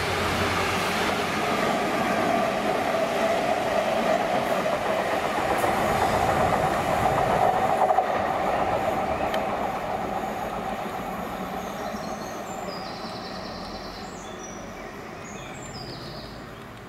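Convoys of British freight diesel locomotives on the move: GB Railfreight Class 66s passing close with a steady engine and rail rumble, then Colas Class 70s, whose sound fades steadily over the second half as they draw away.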